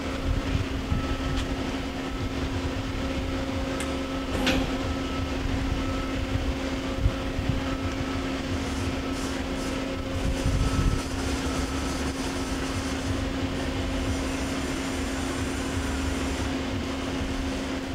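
Daewoo Puma 300LC CNC lathe running with a steady hum as its carriage tows the tailstock along the bed. A thin high tone comes and goes during the first ten seconds, and there is a single click about four and a half seconds in.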